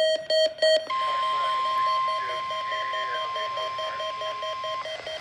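NOAA Weather Radio warning alarm tone being tested: after a few short buzzy bursts, a steady single-pitch 1050 Hz tone starts about a second in, holds for about four seconds, then cuts off.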